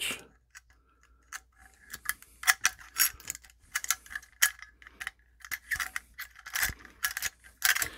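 Irregular small metallic clicks and taps, starting about a second in, as electrical cable and its wire ends are handled and fed into a steel octagon electrical box.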